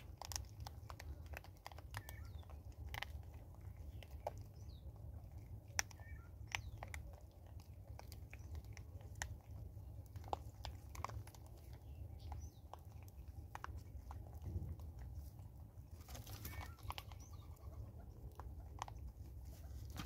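Vervet monkeys chewing dry birdseed at close range, with frequent sharp cracks and crunches as the kernels break. Faint bird chirps in the background.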